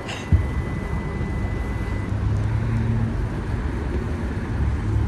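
Car exterior door handle pulled, with one sharp latch thump about a third of a second in, over a steady low rumble. A thin high steady tone sounds for the first two seconds.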